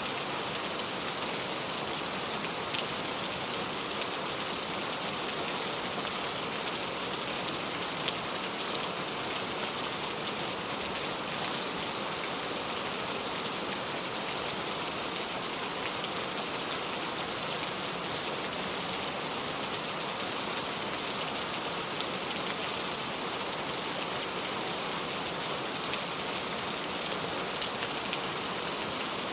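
Heavy rain pouring down in a steady hiss, with occasional louder individual drops ticking out of the wash.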